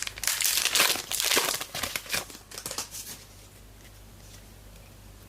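Trading card pack wrapper being torn open and crinkled by hand, a crackly rustling for about three seconds that then dies away.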